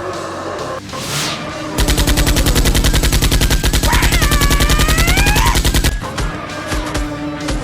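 Machine-gun fire sound effect: one long rapid burst of about a dozen shots a second lasting about four seconds, starting about two seconds in, over background music.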